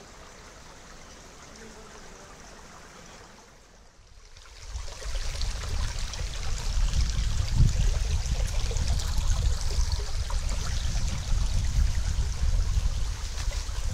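Water of a stream running, turning much louder about four seconds in, with a deep rumble underneath.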